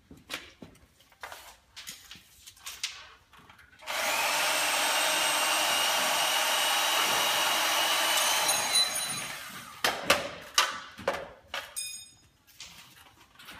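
An electric power tool runs steadily with a high whine for about four seconds, then winds down with falling pitch. A few sharp metal knocks and clanks follow, with a brief high ring among them.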